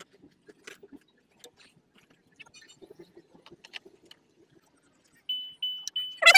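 Faint clicks, taps and plastic rustling as a dashboard fuse box and wiring connectors are handled and pushed into place under the dash. Near the end a short high beep sounds three times in quick succession, and a loud call cuts in at the very end.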